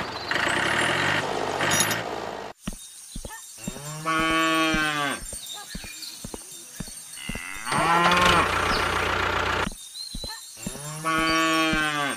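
A tractor engine running, cutting off about two and a half seconds in, followed by a cow mooing three times, each call about a second long, with faint clicking between the calls.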